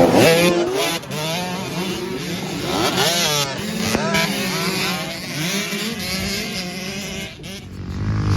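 Several dirt bike engines revving at once, their pitches rising and falling over one another. The loudest surge comes right at the start, with a short lull near the end before they pick up again.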